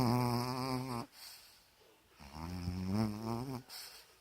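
Snoring in sleep: two long, wavering snores, the second starting about two seconds after the first ends.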